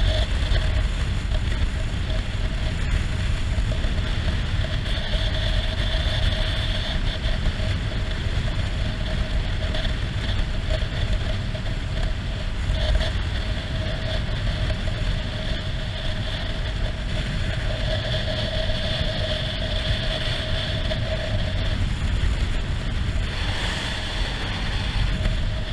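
Wind rushing over the camera microphone, with the Yamaha XTZ 250 Lander's single-cylinder engine running steadily at a highway cruise of about 90 km/h.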